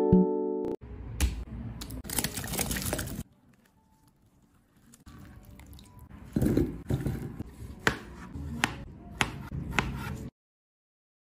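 Water sloshing as strawberries are washed and lifted from a glass bowl of water. This is followed by a chef's knife cutting strawberries into cubes on a plastic cutting board, a series of sharp cuts a little under a second apart in the second half.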